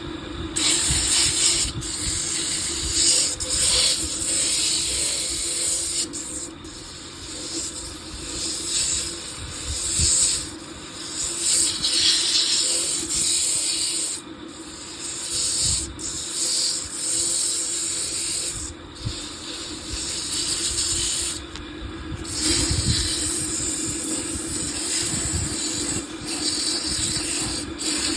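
Wood lathe running with a steady hum while the spinning wooden handle blank is worked, giving a loud hissing, rubbing noise in long passes with brief breaks between them.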